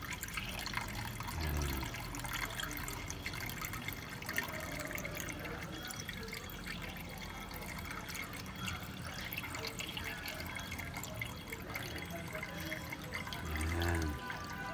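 Coolant pouring in a steady stream from a plastic jug into a car radiator's filler neck, liquid splashing into liquid. A short low hum, like a voice, comes about a second and a half in and again, louder, near the end.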